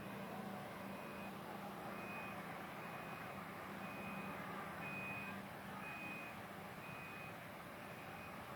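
Heavy-machinery travel warning alarm beeping about once a second, a high single tone, over the steady hum and rumble of a large diesel engine.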